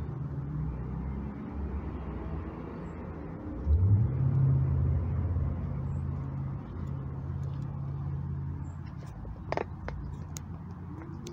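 A motor vehicle's engine runs steadily, rises in pitch as it revs up about four seconds in, then holds a steady drone. A few sharp clicks come near the end.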